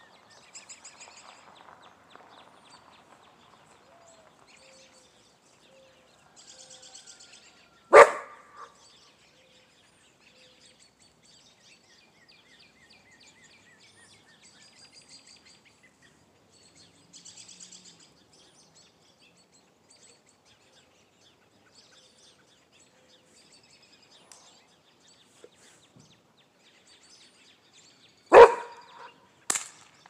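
Small birds chirping and calling, broken by two loud gunshots, one about eight seconds in and one near the end. A shorter sharp crack follows about a second after the second shot.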